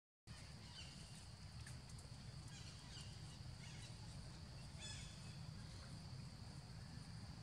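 Faint rural outdoor ambience: a steady high insect drone over a low rumble, with a few short, falling bird chirps.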